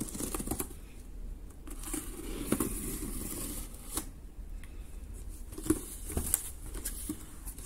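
Pocketknife blade slitting the packing tape along a cardboard box's seam, a rough scraping tear, then the cardboard flaps being pulled open with a few sharp knocks and scrapes.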